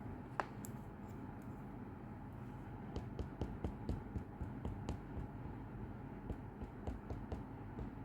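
Faint, irregular light taps and clicks of a rubber stamp being dabbed on an ink pad and pressed onto paper, more frequent from about three seconds in.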